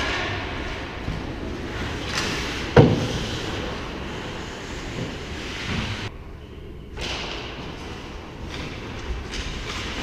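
Indoor ice hockey rink during play: a steady low rumble with skates cutting the ice, and one sharp bang about three seconds in.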